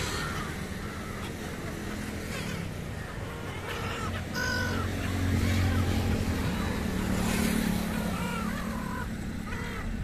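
A flock of Chroicocephalus gulls calling, short squawks repeated every second or two, over a steady low rumble of road traffic.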